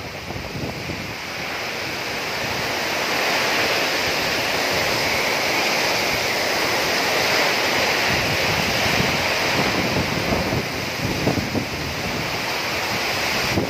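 Heavy tropical rain pouring down in a steady hiss that swells a few seconds in and stays loud. Gusts of wind buffet the microphone.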